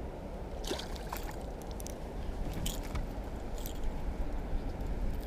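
Water sloshing and splashing beside a small boat as a hooked bream is brought in, with a few short splashes and a steady low rumble underneath.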